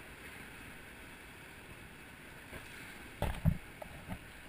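Steady rush of river water around an inflatable whitewater raft, with a short cluster of sharp knocks about three seconds in.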